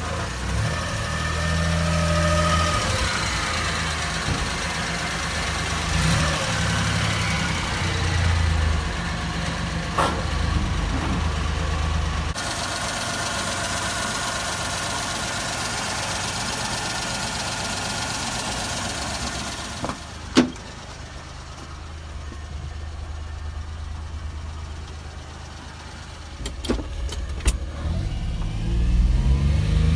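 1992 Suzuki Carry kei truck's 657 cc F6A three-cylinder engine running, its note rising and falling through the first dozen seconds. Later it is quieter, with two sharp knocks, and near the end the engine note rises as it revs.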